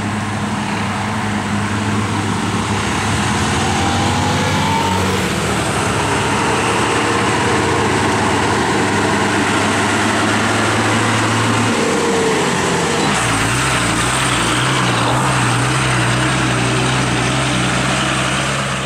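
Heavy loaded lorries' diesel engines running steadily under load as the trucks work through a hairpin bend. The engine note changes and settles lower about twelve seconds in.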